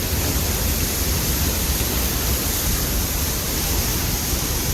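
Waterfall close by: a loud, steady rush of falling water with a deep rumble underneath.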